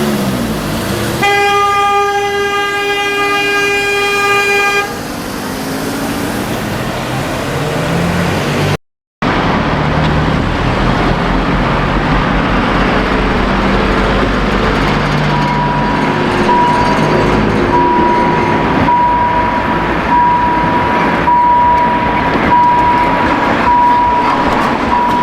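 A train horn sounds one steady note for nearly four seconds. After a cut comes a steady low rumble of a train running, with a short high beep repeating about once a second in the second half.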